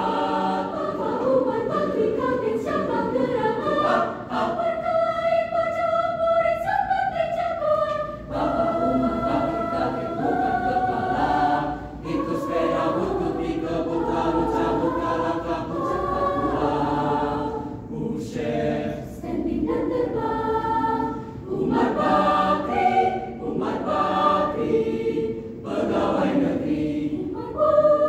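Mixed choir of men's and women's voices singing in parts, phrase after phrase with short breaths between. About four seconds in the sound thins to a few held, stepping notes before the full choir comes back in.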